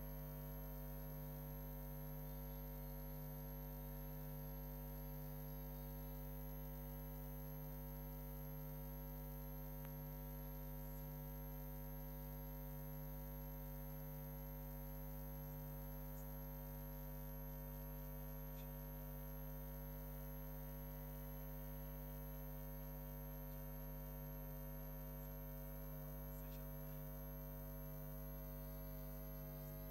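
Steady electrical hum with several overtones and a thin high whine above it, unchanging throughout.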